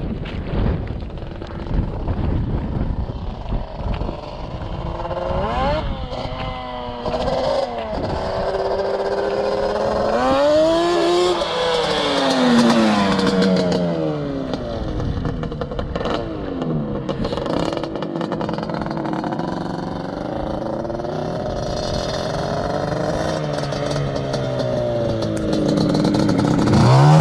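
Yamaha Banshee's 350 cc twin-cylinder two-stroke engine breathing through DMC Alien expansion-chamber pipes, revving up and down repeatedly under riding, its pitch climbing and falling several times.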